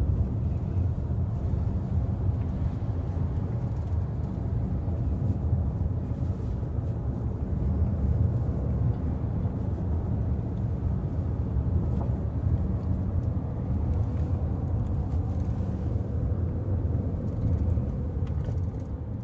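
Cabin noise inside a moving Chrysler Pacifica minivan: a steady low rumble of road noise as it drives on a city street.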